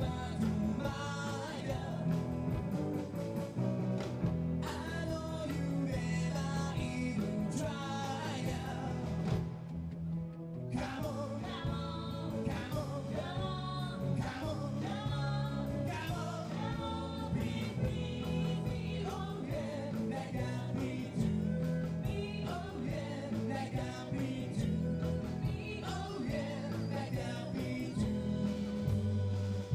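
Live band playing a song, a lead singer's voice over the instruments with a steady low bass line.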